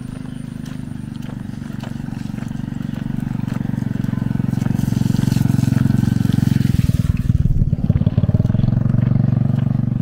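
A small engine running close by with a fast, even pulse, growing louder over the first several seconds and turning uneven about seven seconds in before steadying again.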